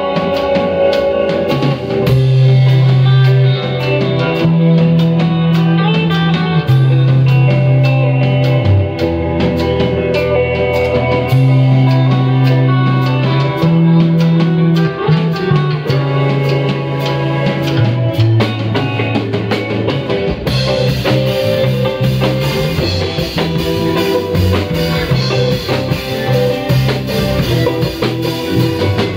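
Live rock band playing an instrumental passage of a rock song built on the Argentine chacarera rhythm: electric guitar, electric bass and drum kit. The bass holds long notes that change every second or two. About twenty seconds in, the band's sound turns fuller and brighter.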